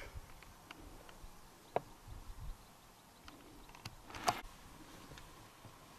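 Quiet open-air ambience with a low steady background and a few scattered short clicks and ticks: a sharp click about two seconds in, and the loudest click, a little longer, about four seconds in.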